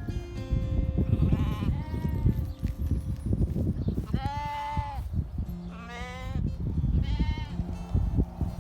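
Farm animals bleating: about four separate bleats, the loudest about halfway through and one wavering upward a little later, over a steady low rumble.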